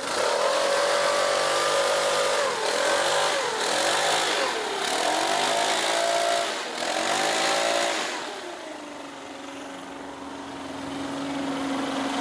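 Small two-stroke engine of a backpack leaf blower being revved up and down, with a strong rush of air, then dropping to a steady idle about eight seconds in.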